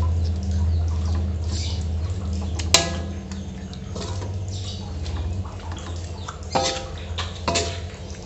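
Spatula stirring and scraping kangkung and grated coconut in a metal wok, knocking against the wok four times with short ringing clangs, the first and loudest about three seconds in. A steady low hum runs underneath.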